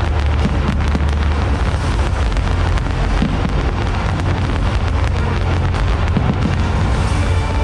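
Fireworks going off in a dense, unbroken barrage: many overlapping bangs and crackles over a heavy low rumble.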